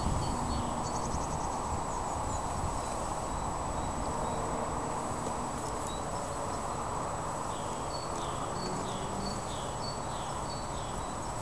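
Honeybees humming from an open hive with its frames exposed: a steady mass buzz, with single bees now and then flying close by as brief steady drones.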